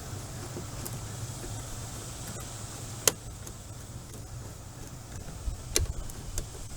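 Two sharp metallic clicks, about three and six seconds in, and a few light knocks from a hand tool working a hose clamp loose, over a steady low hum.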